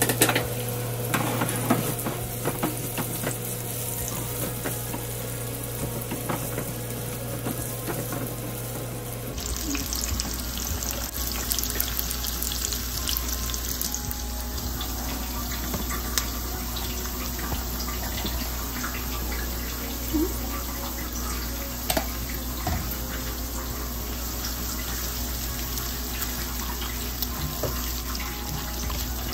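Chopped onions sizzling in hot oil in a nonstick frying pan, a steady hiss with scattered clicks and scrapes as a wooden spatula stirs them.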